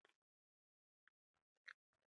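Near silence, broken by a few faint, short mouth clicks from chewing food.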